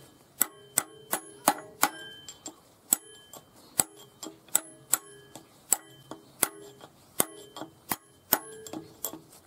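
Small hammer striking a steel rod set in a rusty steel part from an excavator. Sharp metallic taps come about two to three a second at a slightly uneven pace, and each one rings briefly.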